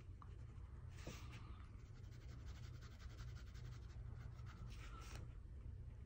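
Zebra F-xMD ballpoint pen with a 1.0 mm refill scratching faintly across notebook paper in rapid short shading strokes, a little louder about a second in and again near five seconds.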